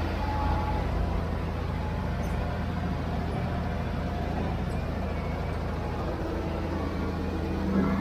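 Heavy construction machine's diesel engine running steadily, a low drone with faint whining tones over it, swelling slightly near the end.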